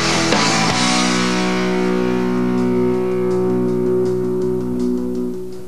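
Rock music with electric guitar. A busy passage settles into a long held chord that rings on and fades near the end.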